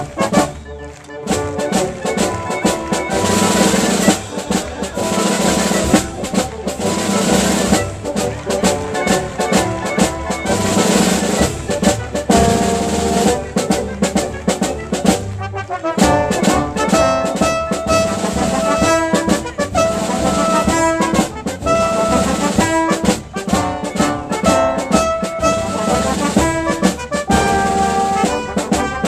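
Symphony orchestra playing a lively piece with brass and drums to the fore. There is a short break about halfway through.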